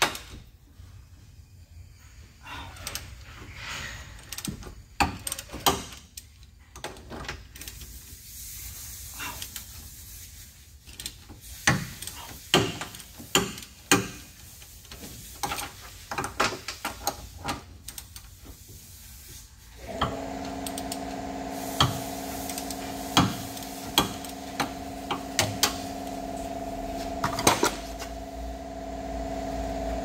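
Ratchet and wrench loosening the bolts of a rear wheel-hub bearing: irregular metallic clicks and clinks of the tools on the bolts. About two-thirds through, a steady machine hum with several fixed tones starts and continues under the clicks.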